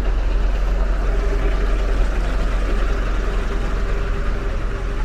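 Steady low rumble of vehicle engines running along a busy market street, under a constant haze of street noise.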